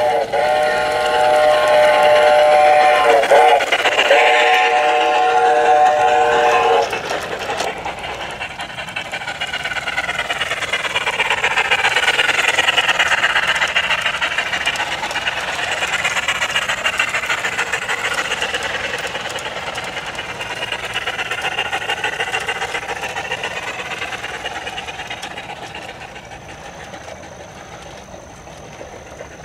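Garden-railway model train: the locomotive blows a chord whistle of several steady tones for about seven seconds, with a short break partway through. The train then rolls past on the track in a clattering rush that swells and fades away near the end.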